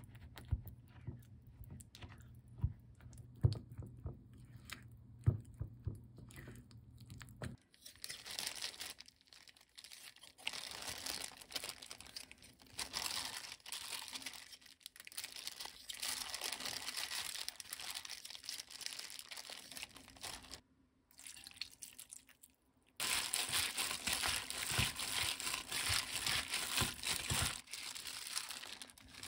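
A silicone spatula stirring a thick chili-paste marinade in a glass bowl, with sharp ticks against the glass. About eight seconds in, this gives way to the crinkling of a thin plastic food-prep glove as a hand works sliced raw pork in a steel bowl. After a brief near-silent break, the crinkling comes back louder as the marinade is mixed into the meat.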